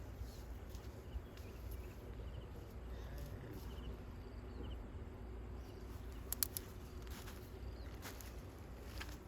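Cows eating soil: a faint gritty crunching, with a few sharper crunches a little past halfway. There is a low steady rumble underneath and faint chirping above.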